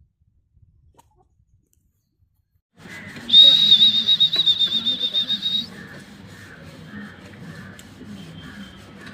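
A loud, high-pitched whistle held steadily for about two and a half seconds with a slight waver, over a low rustling background that starts abruptly a few seconds in; a fainter whistle returns near the end.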